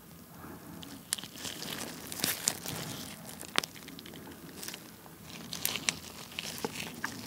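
Chunk of honeycomb squeezed and pulled apart in gloved hands close to the microphone: the wax cells crackle and tear with scattered sticky clicks, the sharpest snap about three and a half seconds in.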